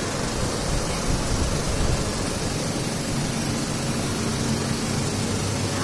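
Machinery running: a steady hiss with a low hum underneath.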